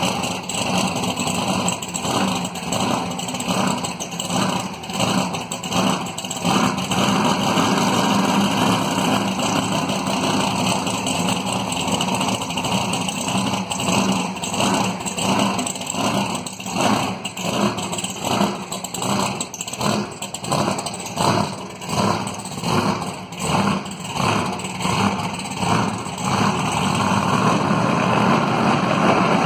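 Supercharged V8 of a 1941 Willys coupe gasser running with a heavy lope, pulsing about twice a second. For several seconds in the middle and again near the end it smooths into a steadier run.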